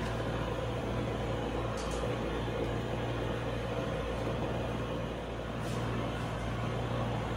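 Steady low mechanical hum with an even background noise, unchanging throughout, and a couple of faint light ticks.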